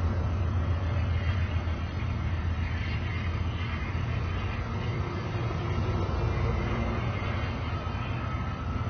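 Amtrak Superliner bilevel passenger cars rolling past close by: a steady low rumble of steel wheels on the rails.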